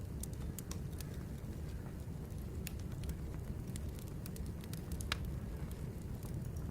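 Birch firewood burning: a steady low rush of the fire with scattered sharp crackles and pops, one louder pop about five seconds in.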